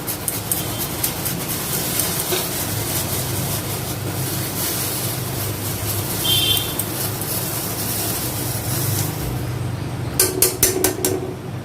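Spiced water boiling in a pot with a steady bubbling hiss, while a utensil scrapes and knocks against the pot, crushing fresh ginger in it; a quick run of sharp knocks about ten seconds in.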